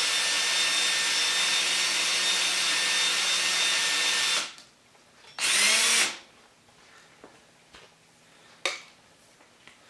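Drill running steadily, driving a manual wire stripper through its crank adapter to strip insulation off a wire. The drill stops about four seconds in, gives a second short burst that spins up and winds down a second later, and a single sharp click follows near the end.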